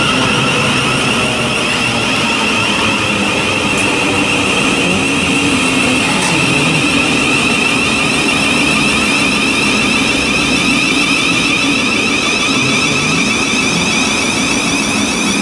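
Thameslink Class 700 electric multiple unit running past the platform: steady rumble of wheels on the rails under a high electric traction whine that slowly falls in pitch.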